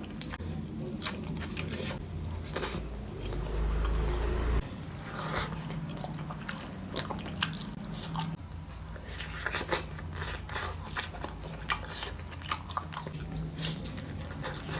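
A person eating close to the microphone: biting and chewing crunchy food, with sharp crunches at irregular intervals throughout, over a steady low hum.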